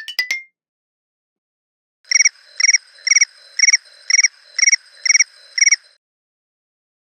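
An iPhone classic ringtone of synthetic cricket-like chirps: eight short, fast-trilling high chirps, about two a second, starting about two seconds in and stopping about two seconds before the end. In the first half second the previous ringtone's rising notes end.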